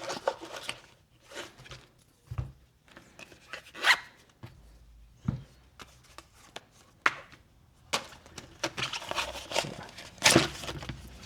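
Handling noises from a suppressor and a zippered fabric storage pouch: rustling and rubbing with scattered knocks and clicks, the loudest knock near the end.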